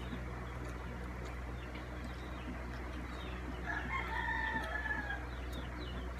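A rooster crowing once, a held call of about a second and a half starting near the middle, over a steady low hum.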